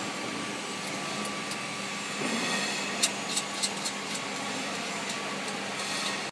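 Steady machinery hum with a faint tone in it. About three seconds in come a few sharp clicks as nuts are taken off the steel mounting bolts on a wrapping-machine frame.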